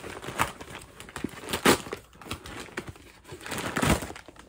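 Packaging crinkling and rustling in irregular bursts as a boxed baby car camera is pulled out of its bag, loudest about a second and a half in and again near the end.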